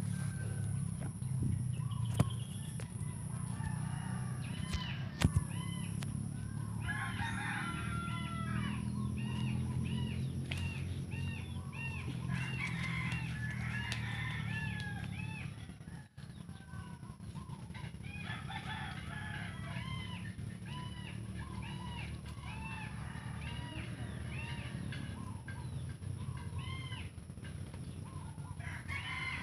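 Chickens calling in runs of short, high, repeated calls, about two a second, with a steady low rumble underneath.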